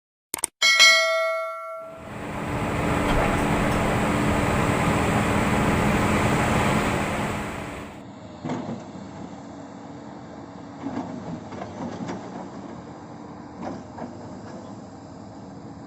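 A short ringing chime, then a heavy hydraulic excavator's diesel engine running loud for about six seconds, and after an abrupt cut a quieter excavator engine hum with scattered knocks and clanks.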